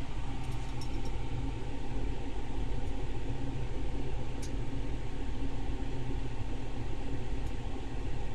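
Steady noise of running machinery: a low hum under an even rushing hiss, with a faint high tick about four seconds in.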